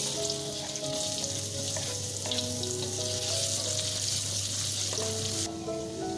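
Food sizzling and frying in a hot pan, with some stirring, over soft background music; the sizzling cuts off abruptly about five and a half seconds in.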